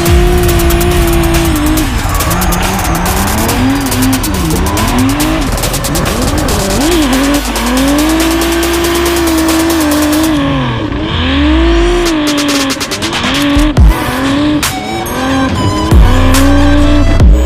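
Drift car's engine revving hard, its pitch climbing and dropping again and again as the throttle is worked through a slide, with tyres squealing, heard from inside the car. A few sharp loud bangs come in the last few seconds.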